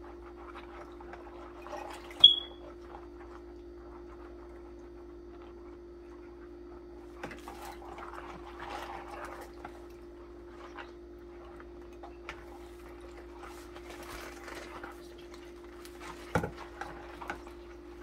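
A sponge scrubbing metal Mayo scissors under soapy water in a plastic basin: soft swishing and sloshing with small clicks of the steel, over a steady low hum. A short high squeak about two seconds in is the loudest sound, and a sharp knock comes near the end.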